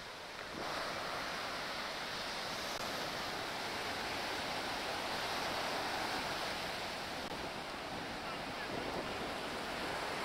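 Ocean surf breaking and washing onto a sandy beach: a steady rushing hiss that gets louder about half a second in.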